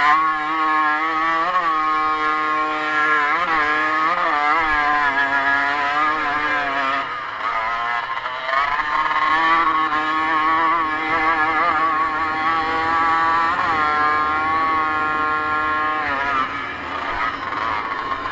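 Motocross dirt bike engine at racing revs, its pitch rising and falling quickly with throttle and gear changes. It drops back briefly about seven to eight seconds in before pulling hard again.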